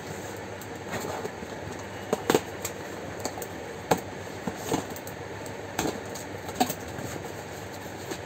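A cardboard carton being cut open and unpacked: irregular taps, scrapes and rustles of cardboard and packing tape as a box cutter slits the tape and the flaps are pulled open, over a steady background hiss.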